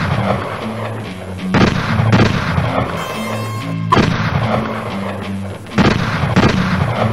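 Several gunshot sound effects, some in pairs about half a second apart, fired over distorted electric guitar music.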